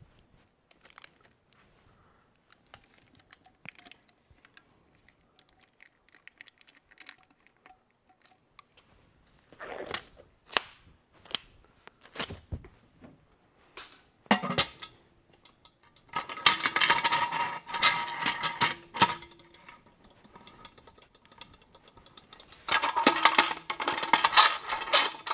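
Metal clinking and clattering from the lid and clamps of a California Air Tools 2.5 gallon pressure pot being put on and fastened, with a ringing note under it. It comes in two dense bursts, one about two-thirds of the way through and one near the end, after a few knocks and quiet handling sounds.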